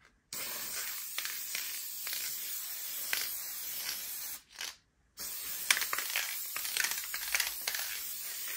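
Aerosol can of Krylon workable fixative spraying: two long hissing sprays, each about four seconds, with a short break between them. This is a second coat of fixative going over a pastel underpainting.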